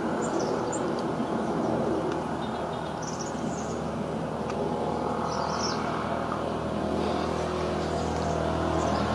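A steady low hum and rumble, with a few short bird chirps over it: two near the start, then more about three and five and a half seconds in.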